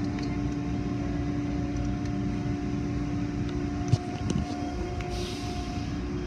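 Automatic tunnel car wash machinery running with a steady hum and drone, heard from inside the car. There is a single knock about four seconds in, and a short hiss about a second later.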